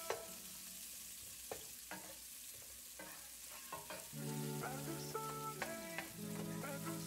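Sliced onion and garlic sizzling in oil in a nonstick pan, with a wooden spoon scraping and tapping the pan as it stirs. Soft background music comes in about halfway through.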